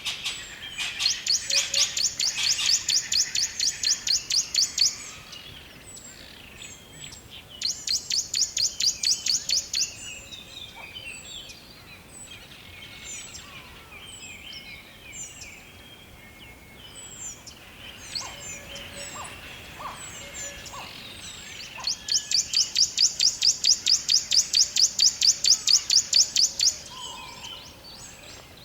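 Woodland birdsong: a loud, high, rapid trill of evenly repeated notes, about eight a second, comes three times for several seconds each (at the start, around eight seconds in and near the end). Scattered short chirps and calls of other birds fill the gaps.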